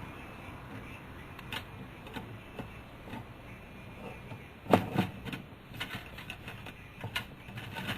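Scattered light clicks and taps of small brass screws and the instrument being handled and fitted into an instrument panel, with two louder knocks close together about halfway through.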